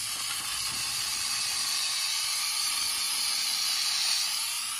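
Aerosol can of spray adhesive spraying in one long, continuous hiss.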